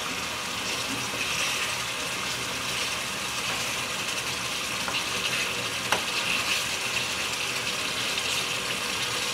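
Thick fish-curry gravy bubbling and sizzling in a pan while a metal spatula gently stirs it through the fish pieces, with a single light tap of the spatula on the pan about six seconds in.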